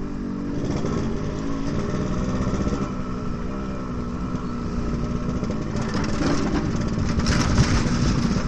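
Yamaha RX-King's single-cylinder two-stroke engine running through a free-flowing pure-sound exhaust, ridden slowly and very loud in a narrow alley. Its pitch shifts in the first couple of seconds, then holds steady, and a rushing noise swells near the end.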